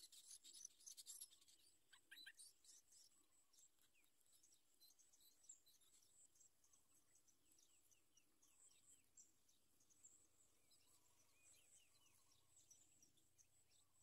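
Faint outdoor ambience: short, high bird chirps repeating over a steady high insect whine, busier and a little louder in the first two or three seconds.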